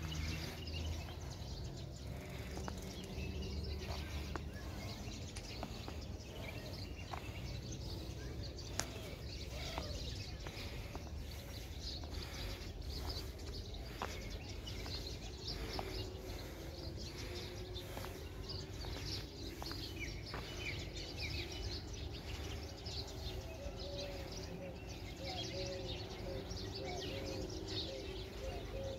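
Many small birds chirping over a steady low rumble of outdoor background noise.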